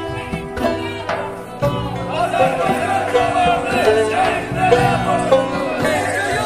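Background music: plucked string notes, joined about two seconds in by a wavering, ornamented melody line.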